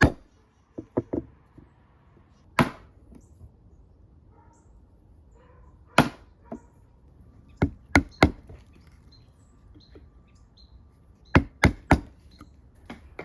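Sharp knocks of a mallet striking a chisel into wood, as in chopping out a mortise by hand. The blows come singly or in quick groups of two or three, with pauses of a few seconds between.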